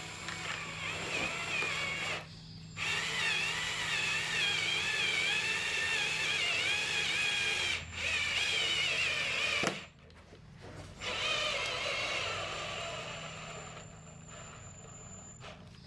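Hammer drill running in several bursts with short pauses and a wavering high whine, working into the concrete slab to fasten the shed floor down with masonry screws.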